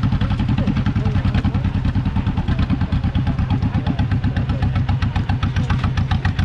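Farm tractor engine running steadily while it pulls a hay wagon, with a rapid, even firing beat.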